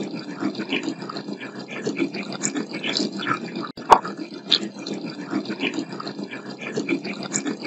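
Running tap water put through AI noise-cancellation software, leaving a choppy, warbling stream of voice-like fragments, with a sharp click about four seconds in. The listener takes the fragments for spirit voices saying 'us' and 'I'm in'.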